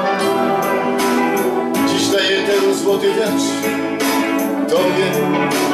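Acoustic guitar strummed over a backing track of sustained keyboard chords and a steady drum beat, in an instrumental passage of a song with no singing.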